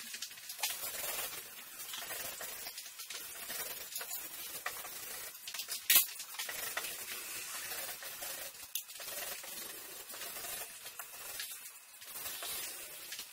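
Paint roller rolling wet white paint over a painted wall: a soft, sticky crackling hiss with scattered small clicks. A sharp knock about six seconds in.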